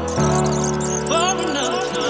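Background music: sustained chords that change about every second, with chirping bird sounds mixed in.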